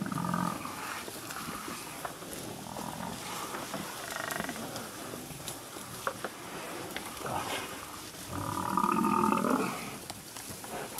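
Deep growls and moaning bellows from a male lion and the Cape buffalo it is feeding on, which is down but still alive. There are several drawn-out calls, and the loudest begins about eight and a half seconds in and lasts over a second.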